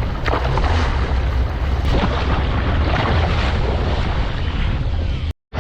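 Boat underway with wind blowing across the microphone: a steady low engine rumble under wind noise. The sound drops out for a moment near the end.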